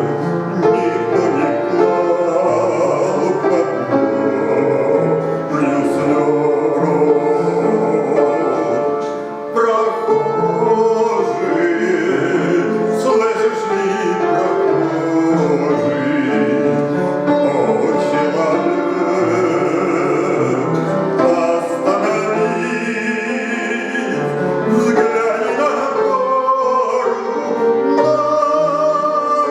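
Christian hymn performed with instrumental accompaniment and some singing, playing continuously.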